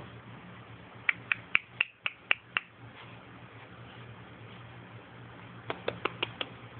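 Two quick runs of sharp clicks: seven about a second in at roughly four a second, then six faster ones near the end, over a faint low hum.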